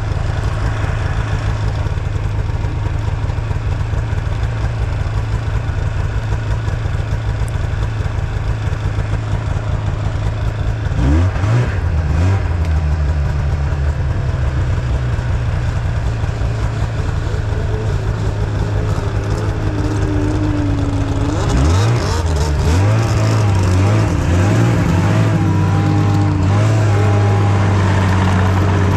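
Snowmobile engine running: a steady idle, then throttled up about eleven seconds in, with a rising pitch that settles into a steady higher speed. It revs up again a little after twenty seconds.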